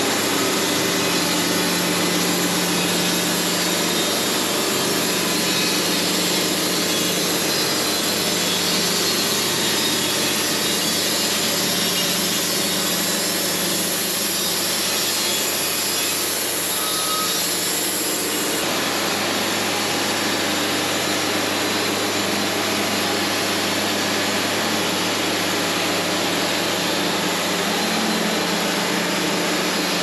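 Wood-Mizer LT70 band sawmill running steadily while sawing a log, a continuous mechanical drone with an even engine hum underneath.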